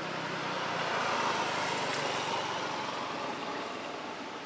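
A motor vehicle passing by: a rush of road noise that swells about a second in, then slowly fades, with a low engine hum dying away early on.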